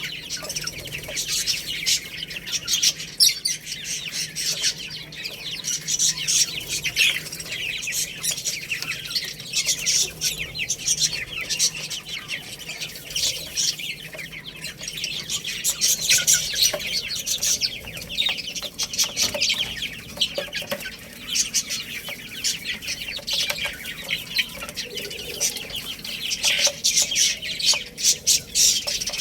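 A group of chicks chirping: many short, high-pitched peeps overlapping without pause, with the occasional cluck.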